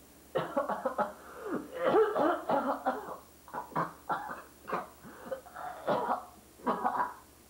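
A man laughing: a run of short bursts of laughter, then a few shorter chuckles.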